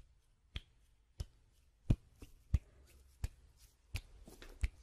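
Close-miked ASMR hand sounds: a run of about seven crisp clicks, evenly spaced about two-thirds of a second apart, over a faint low hum.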